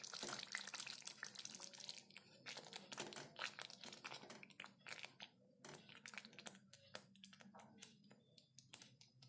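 Wooden spatula stirring thick pav bhaji mash in a pan, mixing in a cube of butter: faint, irregular wet squelches and soft scrapes.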